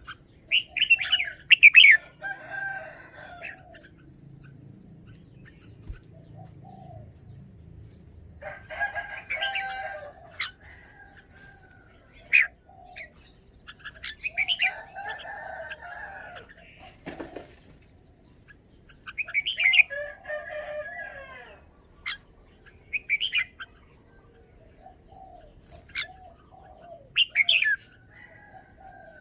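Red-whiskered bulbul singing short song phrases, one every few seconds, with brief pauses in between.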